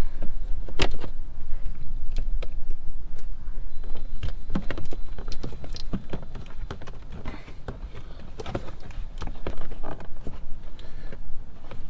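Irregular plastic clicks and knocks with rustling handling noise as an aftermarket LED light housing and its connector are pushed and snapped into place.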